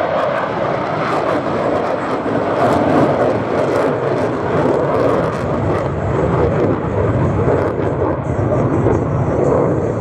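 F-35A Lightning II fighter jet flying past, the noise of its single turbofan engine a steady, loud, dense rush.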